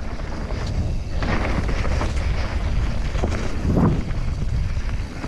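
Wind buffeting the microphone with a low rumble over a mountain bike rolling fast on a dirt trail, thickening about a second in, with one louder thump near four seconds in.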